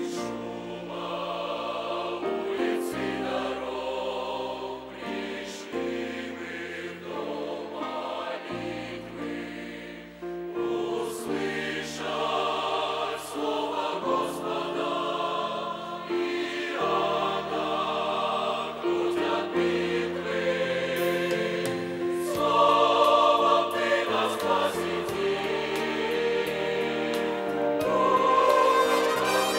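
Mixed church choir of men and women singing a hymn in Russian, holding sustained chords that change every second or two.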